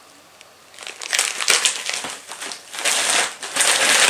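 Snack packaging crinkling and rustling as it is handled. It starts about a second in, after a brief quiet moment, and comes in uneven crackly waves.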